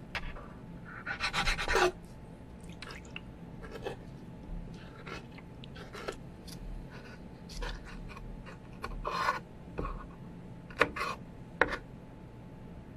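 Close-miked mukbang eating sounds: irregular wet chewing, smacking and crunchy mouth clicks, with a louder cluster about a second in and sharp clicks near the end.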